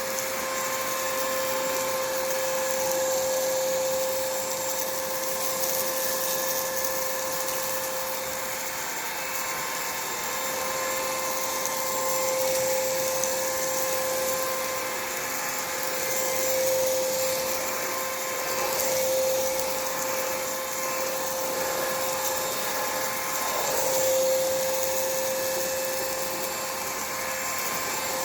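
Anko cordless stick vacuum cleaner running on turbo speed: a steady motor whine at one pitch over a rushing airflow hiss. The level swells and dips gently as the vacuum is worked across a hard floor.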